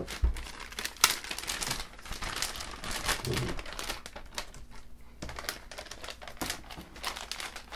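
Plastic anti-static bag crinkling and rustling in irregular bursts as it is pulled open and worked off a motherboard, with a sharp click about a second in.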